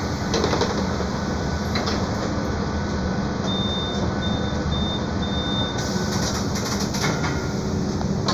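Mercedes-Benz O-500U city bus idling at a standstill, a steady low engine hum heard from inside the passenger cabin. Midway there is a run of several short, high electronic beeps at one pitch.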